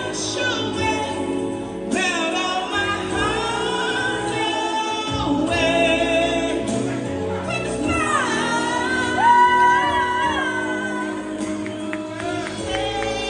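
A person singing a slow, melodic song over musical backing, with sliding phrases and long held notes, the strongest held note a little past the middle.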